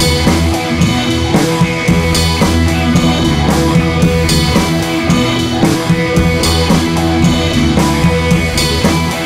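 Background rock music with electric guitar and drums.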